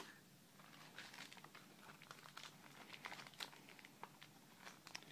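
Faint crinkling and small clicks of a plastic-wrapped package being handled.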